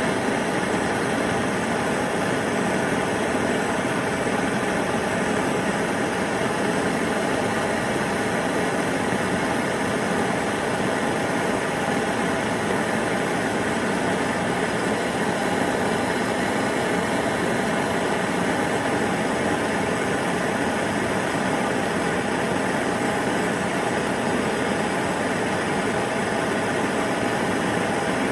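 Handheld gas torch flame burning with a steady hiss, heating a copper pipe joint for soldering.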